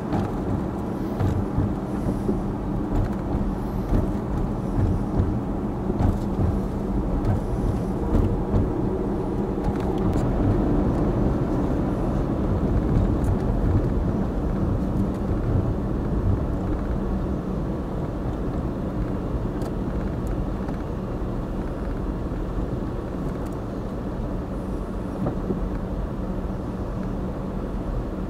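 Motor vehicle engine running steadily, a low drone with a rumble beneath it.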